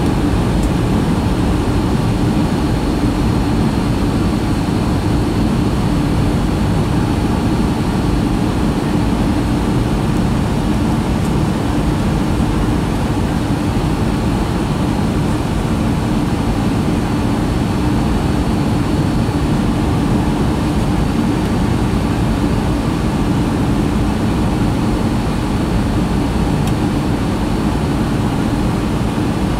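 Boeing 757-200 cabin noise on descent, heard inside the cabin beside the wing-mounted jet engine: a steady jet-engine and airflow rush with a low hum and a faint high whine, unchanging throughout.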